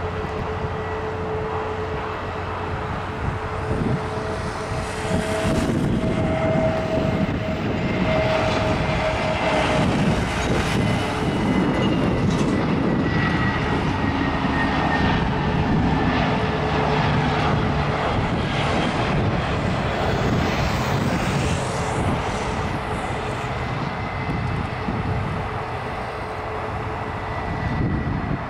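Airbus A320neo jet engines on landing approach, a loud rushing noise with a high whine that swells as the airliner comes near, drops slightly in pitch as it passes, then eases off.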